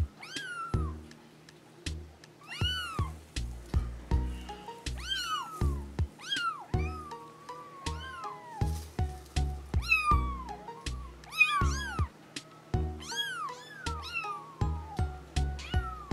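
Bengal kittens mewing again and again, high thin calls that rise and fall in pitch, sometimes two at once. Background music with a steady beat runs underneath.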